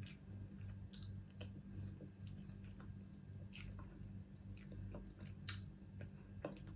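Quiet chewing of crab with scattered soft clicks and ticks of mouth and shell, over a low steady hum.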